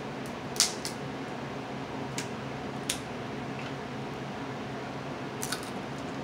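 Sharp snaps and cracks of cooked snow crab leg shells being broken open by hand, about half a dozen, the loudest about half a second in, over a steady low hum.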